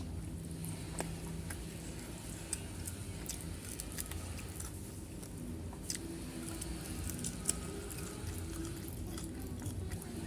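Close-up chewing and wet mouth sounds of someone eating, with scattered small clicks and squishes.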